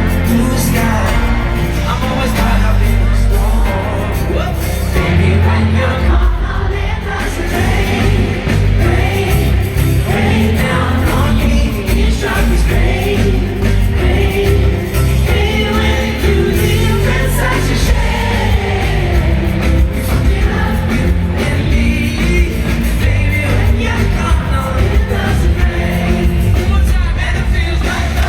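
Pop-rock song playing at a steady level: full band with a singing voice.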